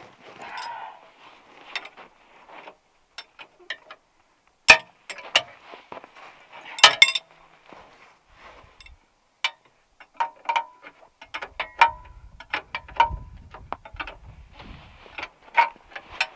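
Steel hand tools clinking and clicking on the snowmobile ski's mounting bolt and nut as the nut is fitted and turned with a wrench. There are two sharper metal knocks about 5 and 7 seconds in, and a run of quick ringing clicks from about 10 seconds on.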